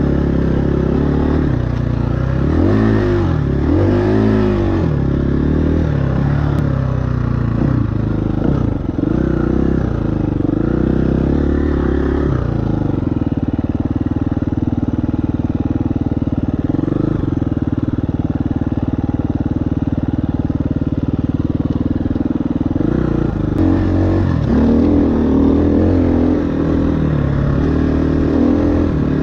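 KTM 350 EXC-F's single-cylinder four-stroke engine under way, its revs rising and falling repeatedly in the first few seconds. It holds a steady speed from about halfway until near the end, then revs up and down again.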